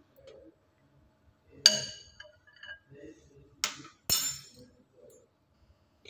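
Steel spoon clinking against a glass bowl of pasta and water: three sharp clinks, each with a brief ring, the first about two seconds in and the last two close together a little later, with faint stirring between them.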